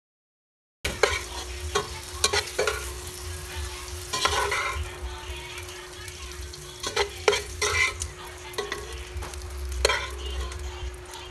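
Pork belly pieces sizzling in hot oil in a nonstick pot as they are lifted out, with repeated clicks and scrapes against the pan, starting about a second in. A steady hum runs underneath.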